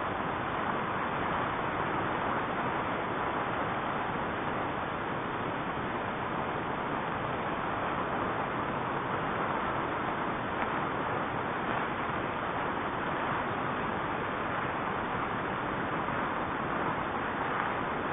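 Avalanche of snow sweeping down onto a road, heard as a steady rushing noise through a security camera's low-quality microphone.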